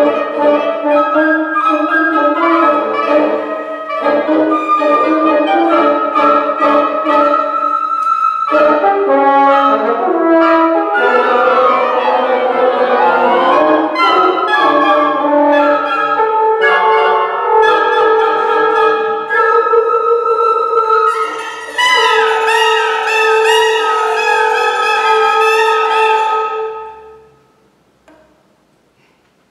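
Woodwind quintet of flute, oboe, clarinet, bassoon and horn playing contemporary chamber music live. Around the middle several lines slide in pitch across one another, then a held low note under fluttering, wavering upper lines closes the passage, and the playing stops near the end.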